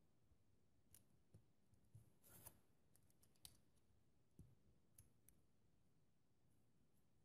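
Small plastic building bricks being handled and pressed together, giving several faint, irregular clicks and a short scrape about two and a half seconds in.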